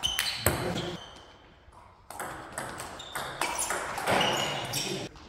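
Table tennis ball struck back and forth in a rally, sharp clicks off the paddles and bounces on the table in quick succession. The clicks stop for about a second early on, then a new rally starts and runs until just before the end.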